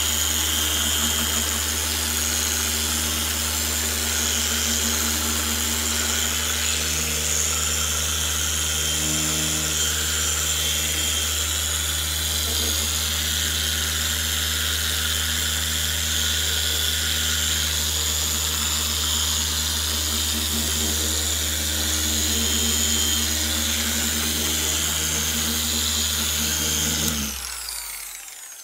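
Corded electric polisher with a foam pad running steadily while buffing a plastic car headlight lens, its motor humming evenly. Near the end it is switched off and winds down quickly.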